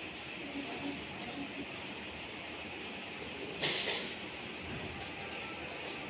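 Steady background hiss with a faint, high, fast-pulsing chirp running through it, like a night insect's trill. A little past three and a half seconds in comes a brief louder scratchy rustle.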